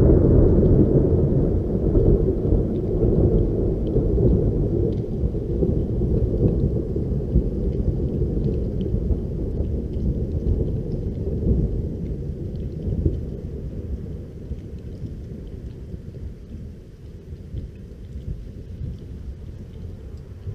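Thunder from a lightning strike about 1.4 km away: a sudden clap, then a long, deep rumble that rolls on and slowly fades over some fifteen seconds.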